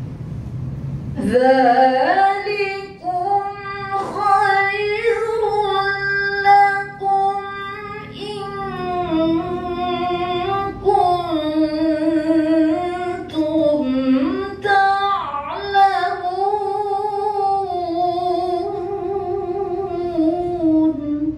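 A woman reciting the Qur'an in melodic tilawah style, a long, ornamented phrase with a wavering, sustained pitch that begins about a second in.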